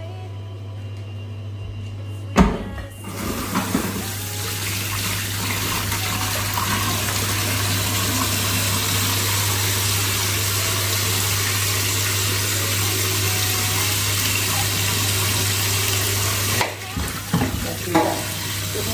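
Kitchen tap running water into a sink while vegetables are washed, starting just after a knock about two and a half seconds in and shutting off abruptly near the end, followed by a few clatters. A steady low hum runs underneath.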